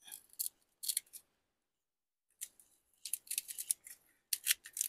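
Heavy-duty hook-and-loop (industrial Velcro) strips making short scratchy, crackling bursts as they are handled and pressed into place, with a busier run of quick scratches in the second half.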